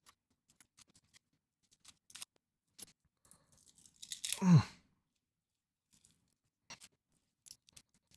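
Faint, scattered crinkling and crackling of plastic cling wrap being picked and peeled off the tops of small glass ink vials. About four and a half seconds in, a short, loud vocal sound falling in pitch cuts in.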